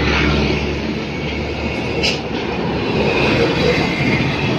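Road traffic passing close by: a car goes by, then a loaded heavy truck drives past, its diesel engine and tyres loud and steady. A short sharp click sounds about two seconds in.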